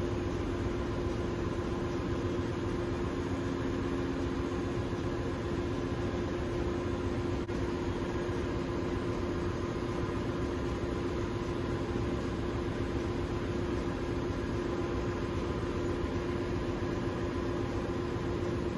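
Steady drone of a ship's engine-room machinery: an even rumble with a constant hum through it, and one faint click about seven and a half seconds in.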